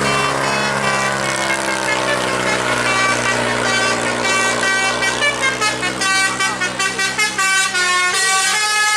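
Tour bus's Basuri telolet horn playing a melody of pitched notes, with a quick run of short, choppy notes in the middle between longer held ones.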